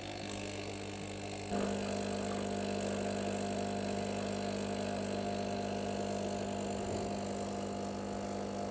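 Espresso machine's pump running steadily with a buzzing hum while espresso pours into a glass. The hum gets louder about a second and a half in.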